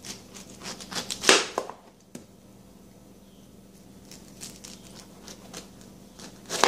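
Kitchen knife cutting through a peeled, ripe pineapple into rounds on a plastic cutting board: a run of short, wet crunching strokes, loudest about a second in, a second run a few seconds later, and a sharper stroke at the end.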